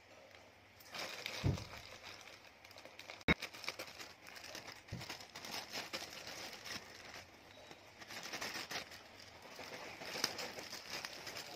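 Plastic courier mailer bag crinkling as it is handled and cut open with scissors, with a sharp click about three seconds in.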